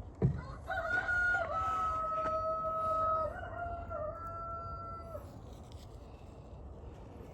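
Rooster crowing: one long crow of about four and a half seconds, held on a steady pitch with a few small steps, just after a short knock.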